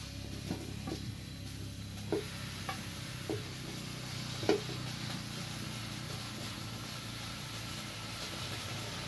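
French fries frying in hot oil, a steady sizzle, with a few light knocks of a utensil against the pan in the first half. The loudest knock comes about four and a half seconds in.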